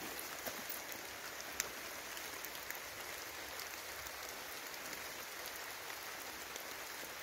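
Steady hiss of water outdoors at night, with a few faint clicks, one about one and a half seconds in.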